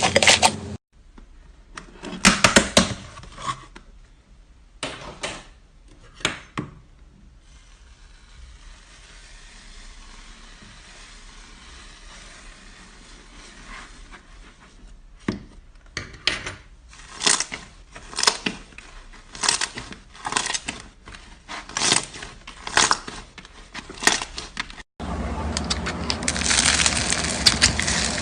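Slime being squeezed and kneaded by hand: a run of short, separate crackling squishes, then dense, continuous crackling near the end.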